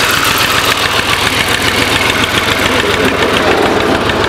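Farm tractor's diesel engine running steadily with an even, rapid beat, heard close up from on the tractor.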